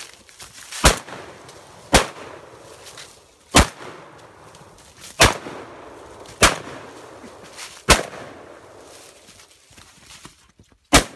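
Semi-automatic 12-gauge tactical shotgun fired in rapid succession: six shots about one to one and a half seconds apart, each trailed by a short echo, then one more shot near the end after a pause of about three seconds.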